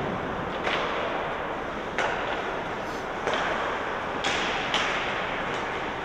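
Ice hockey play: about five sharp cracks of sticks and puck on the ice, each trailing off with a short echoing hiss, over steady arena noise.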